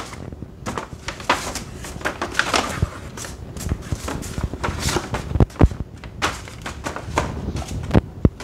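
Objects being handled and put down on a table: a string of knocks and thuds, the loudest a few near the middle and one near the end, with rustling in between.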